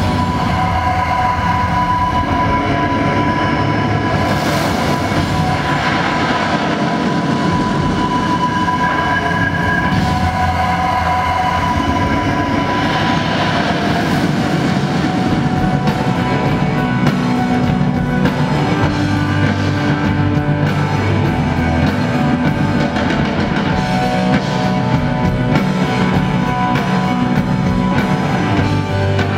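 Loud show soundtrack: music mixed with rumbling, train-like industrial effects, moving toward rock music near the end.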